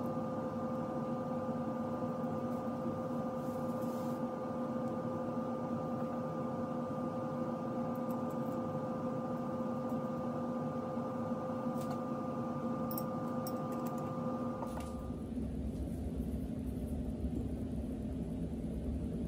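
Steady background hum with a couple of steady tones, and a few faint clicks of small metal parts being handled. About fifteen seconds in the hum stops and a lower rumble takes over.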